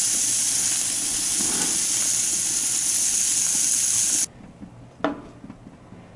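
Bacon-wrapped chicken thighs sizzling on the grate of a hot propane sear box, fat flaring up in the flames: a steady hiss that cuts off suddenly about four seconds in. After that it is much quieter, with one sharp click about a second later.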